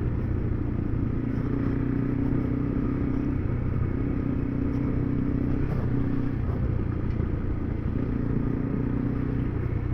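Single-cylinder adventure motorcycle engine running steadily under way, heard from the rider's position, with a higher engine tone fading in and out several times.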